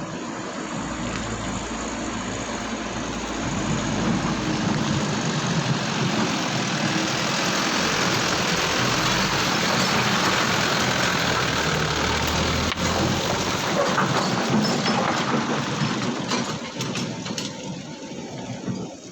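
Engine of a heavy quarry machine running, getting louder a few seconds in and fading near the end.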